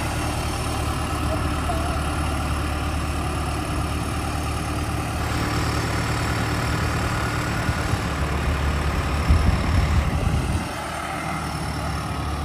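Mahindra 555 DI tractor's diesel engine running steadily at low revs, louder and rougher for a moment about nine seconds in, then dropping back.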